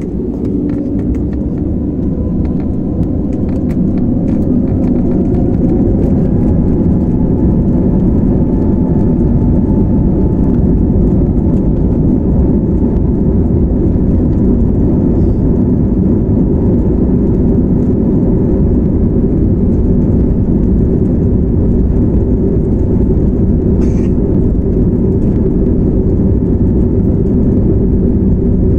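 Airbus A320 jet engines spooling up to takeoff thrust, heard from inside the cabin: a whine rising in pitch over the first few seconds, then a loud, steady roar and rumble as the airliner accelerates down the runway.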